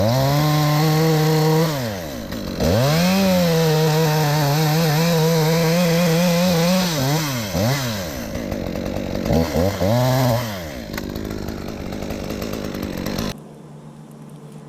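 Chainsaw revved to full throttle in two long pulls with a brief drop between them, its pitch wavering as if under cutting load. A few short revs follow, then it runs low and cuts off suddenly about thirteen seconds in.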